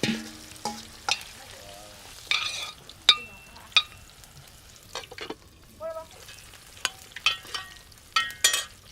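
A utensil stirring in a metal cooking pot, knocking against its side in an irregular series of sharp clanks, several of which ring briefly.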